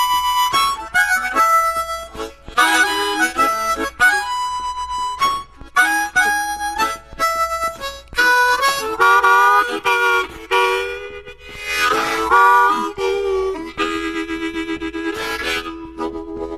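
Solo blues harmonica playing the opening of a song, a run of held notes, some of them bent and wavering in pitch.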